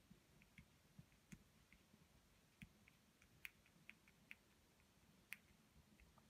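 Near silence with faint, scattered small clicks and ticks from a beeswax crayon working on paper.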